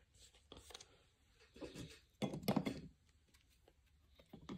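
Handling noise from trading cards and clear plastic card stands being moved and set down: scattered light clicks and taps, with a louder knock about two and a half seconds in.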